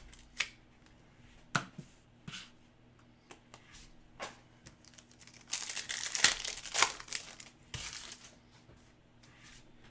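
Foil trading-card pack wrapper being torn open and crinkled, a dense crackling stretch about halfway through, with scattered light clicks and ticks of cards being handled around it.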